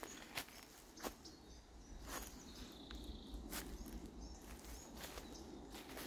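Quiet footsteps on a dirt trail strewn with dry leaves, a step roughly every second or so, with a thin high bird call about halfway through.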